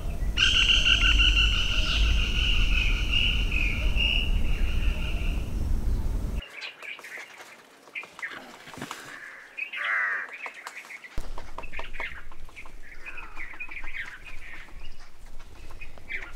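Black-rumped flameback giving a long, even trilled call lasting about five seconds over a low background rumble. Then, on a different and quieter recording, comes a run of shorter calls and quick rattles.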